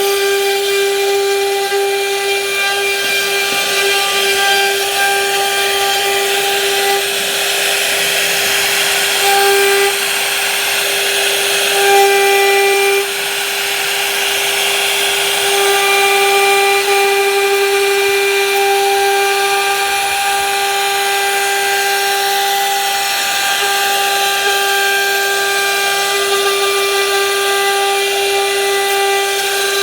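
Electric woodworking power tool running with a steady high-pitched whine over a hiss of cutting wood; the whine holds one pitch throughout, its overtones briefly dropping and returning a few times.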